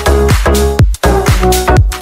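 Electronic dance music with a steady kick-drum beat, about two beats a second, under sustained synth chords.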